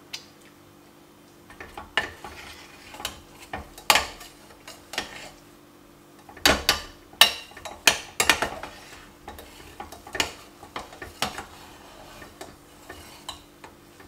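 A steel spoon stirring thick cooked pongal in a metal pressure cooker pot, scraping and clinking against the pot's sides in irregular strokes. It is loudest about halfway through.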